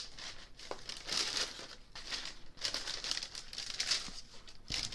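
Shoebox tissue wrapping paper crinkling and rustling in irregular surges as it is pulled open around a sneaker.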